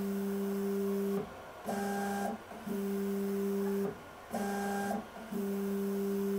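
Creality K1 3D printer's stepper motors whining steadily as the bed and hot end travel on their freshly greased rods. The whine comes in a repeating cycle: a longer low tone, a short pause, then a shorter, higher-pitched tone and another pause, about every two and a half seconds.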